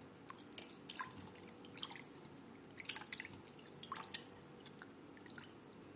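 Faint splashes and drips of water as hands swish and lift pieces of raw liver in a bowl of plain water, rinsing them; a handful of small splashes about a second apart.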